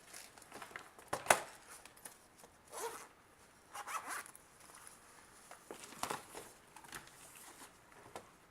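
Hands handling batteries and the plastic case of a handheld multimeter: a sharp click a little over a second in, then several short scraping, sliding rasps.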